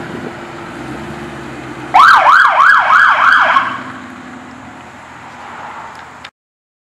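Police patrol car siren sounding a short burst of about five quick rising-and-falling yelps, over a steady vehicle noise, as the car pulls away. The sound cuts off suddenly near the end.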